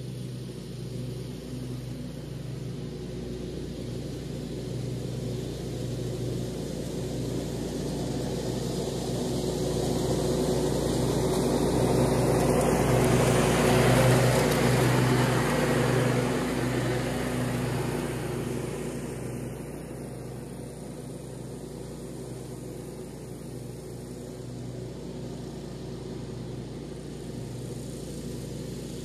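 Zero-turn riding mower's engine running steadily as it mows, growing louder as it approaches, passing close about halfway through, then fading as it moves away.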